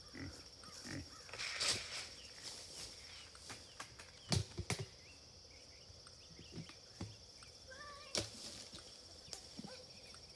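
Rustling and a few sharp knocks as pigs and a person move through brush and leaf litter, over a steady high hum.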